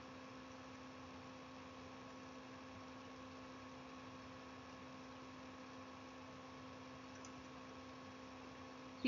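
Steady electrical hum with a faint hiss under it: the recording's background noise, with no other sound.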